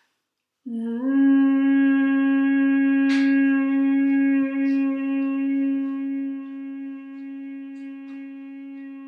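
A woman humming a single sustained "N" note, steady in pitch, starting just under a second in and slowly getting quieter: a breath exercise of holding one note for as long as possible to build lung capacity.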